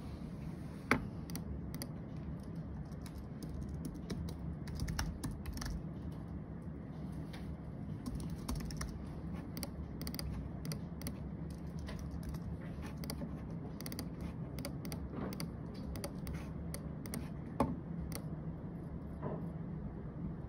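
Typing on a computer keyboard: an irregular run of quick key clicks, with two louder clicks about a second in and near the end, over a low steady hum.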